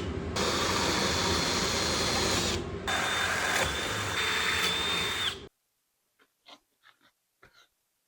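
An electric power tool runs steadily with a faint high whine, then cuts off abruptly about five and a half seconds in. A few faint clicks of handling follow.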